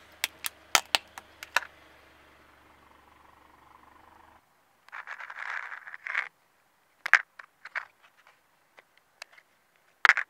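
A car tyre pressing down on a black plastic cup lid: a quick run of sharp cracks and snaps in the first second and a half over a low steady hum. After a sudden cut, a short rustle and a few sharp plastic clicks and taps as a toy lamp is handled and set on the lid, with one loud click near the end.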